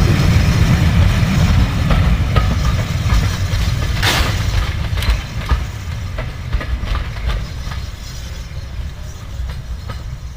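Steam-hauled train's wheels rolling over a level crossing, clattering over the rails with a heavy rumble that fades away as it passes. A brief hiss comes about four seconds in.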